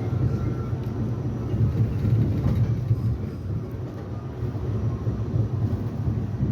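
R68A subway car running along the track, heard from on board: a steady low rumble of wheels and running gear.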